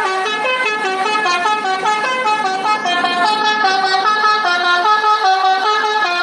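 Indonesian bus telolet horn, a multi-tone musical air horn, playing a quick tune of stepped notes, several notes a second without a break.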